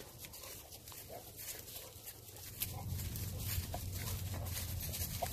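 Dry oak leaves crackling underfoot, with a bulldog snuffling as it noses through the leaf litter. A low rumble comes in about halfway through and makes the rest louder.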